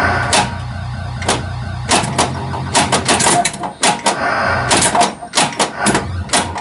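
1982 Bally Vector pinball machine in play: a run of sharp, irregular clacks from the flippers, bumpers and solenoids firing and the ball striking, over the machine's steady low electronic sound effects.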